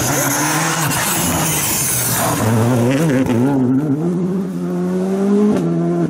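Skoda Fabia R5 rally car's turbocharged four-cylinder engine accelerating hard past on a loose dirt road, with a loud hiss of tyres and spraying dirt for the first two seconds or so. The engine pitch climbs steadily, then drops sharply with an upshift shortly before the end.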